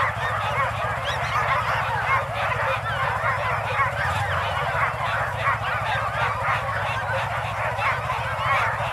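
Many sled dogs yelping and barking together in a dense, unbroken chorus of high, overlapping calls, the eager noise of harnessed dog teams waiting to start a race.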